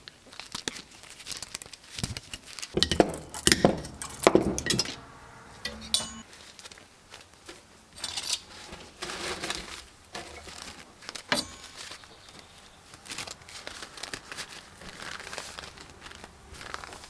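Small scrap parts from a teardown (metal pieces, wire and bits of housing) being handled and sorted, clinking and knocking together at irregular moments with some crinkling, busiest about three to four and a half seconds in.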